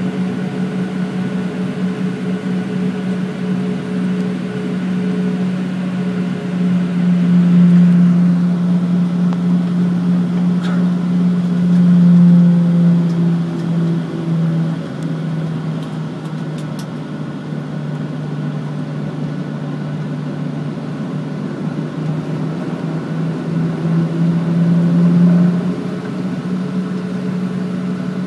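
Steady low hum inside the cabin of a Boeing 737-800 moving on the ground with its engines running. The hum swells louder a few times and dips slightly in pitch for a while.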